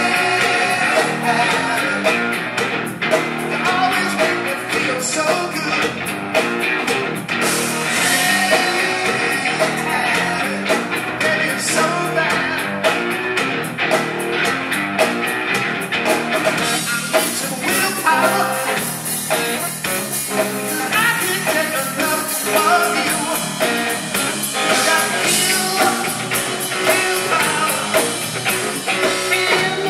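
A live rock band plays: amplified electric guitar and a drum kit.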